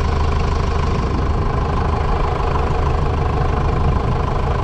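John Deere 6310 tractor's four-cylinder diesel engine running steadily through its new stainless steel exhaust.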